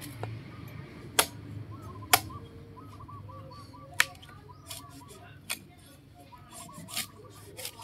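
A heavy knife chopping into the soft husk of a young coconut: about five sharp, separate cuts, a second or more apart.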